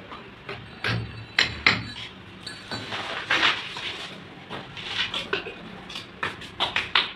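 Irregular clinks, taps and scrapes from handling a metal tin of pipe glue and PVC drain pipe fittings, a few sharp knocks scattered through and some brief scraping about a third of the way in.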